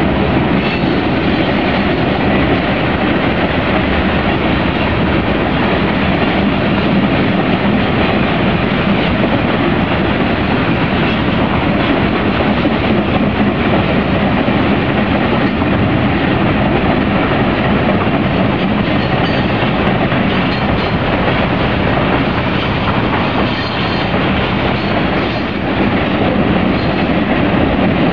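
Freight train rolling past with flatcars of armoured vehicles: the steady, continuous noise of loaded cars running on the rails.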